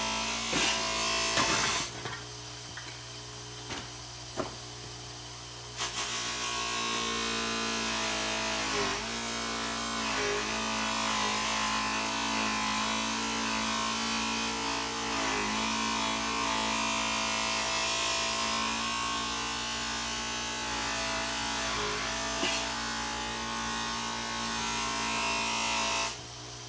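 Electric power tool running with a buzzing whine, likely trimming the edge of a Lexan windshield. It stops about two seconds in, starts again a few seconds later and runs steadily until near the end, over a constant low hum.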